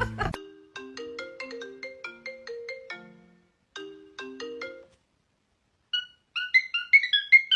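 Ringtone-style melody of short, separate plucked notes at about three to four a second, in two phrases with brief gaps. A higher, quicker run of notes follows near the end.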